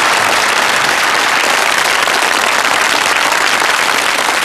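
Audience applauding: a loud, steady patter of many hands clapping.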